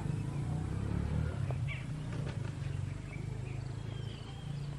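Short, high bird chirps scattered over a steady low hum.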